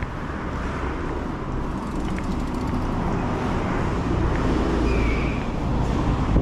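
Street traffic going by close at hand: a car and a bus driving past on the road, their low rumble swelling about four to five seconds in.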